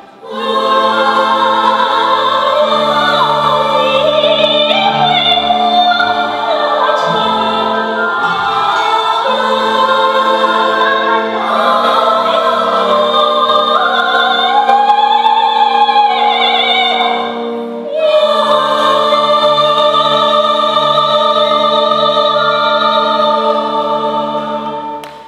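Women's choir and a lead singer performing a Chinese folk-style song with an orchestra of Western strings and Chinese instruments. The music dips briefly about two-thirds of the way through, then ends on a long held final chord that fades at the very end.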